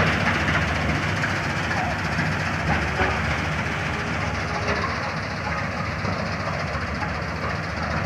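Simran 676 self-propelled combine harvester, with an Ashok Leyland H6 diesel engine, running steadily under load as it cuts standing grain: a loud, continuous mechanical drone of engine and threshing machinery, easing off slightly as it moves past.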